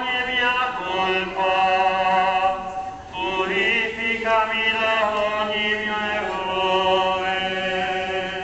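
Voices of a religious procession singing a slow chant in long held notes, with a short pause for breath about three seconds in.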